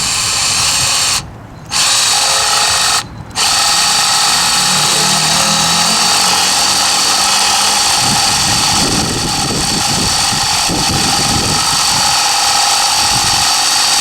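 Hart 20-volt brushed cordless drill running under load as it bores into wood. It cuts out twice for a moment in the first few seconds, then runs continuously, with a rougher grinding from about eight seconds in.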